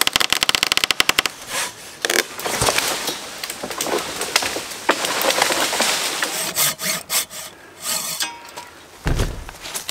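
A maple trunk being cut down with a large Silky Katanaboy folding saw. A fast run of crackling as the wood fibres give way at the cut comes first, then rasping saw strokes with splintering cracks, and a low heavy thud near the end.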